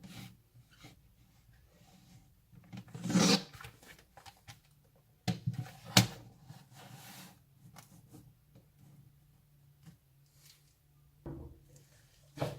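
Handling of a laptop on a hard surface: scattered light clicks and knocks, a scrape about three seconds in and a sharp click about halfway through.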